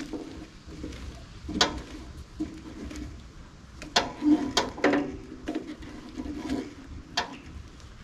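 Blade tensioner handle on a Woodland Mills HM122 band sawmill being cranked to tension the band blade: about half a dozen irregular sharp clicks with short faint creaks between them.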